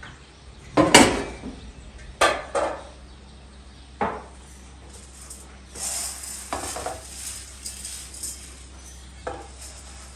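Kitchen clatter of pots, dishes and cutlery: about five sharp knocks and clinks, the loudest about a second in, with a stretch of hiss a little past the middle.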